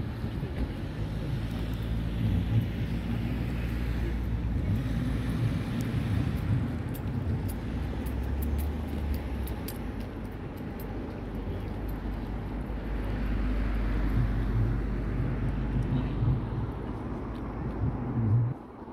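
Outdoor ambience: a steady low rumble with a low engine hum that comes and goes, and faint voices in the background.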